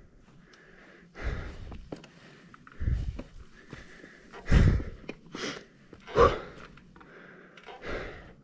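A person breathing hard close to the microphone: several loud breaths at irregular intervals of one to two seconds.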